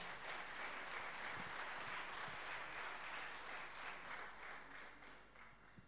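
Audience applauding in a hall, a steady patter of many hands clapping that dies away near the end.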